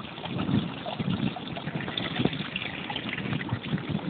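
Wind buffeting the microphone in uneven gusts, a low rumble under a steady hiss.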